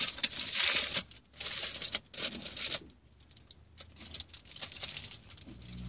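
Aluminium foil wrapped around a sub sandwich crinkling as it is handled, in three crackly bursts over the first three seconds, then fainter scattered crackles and clicks.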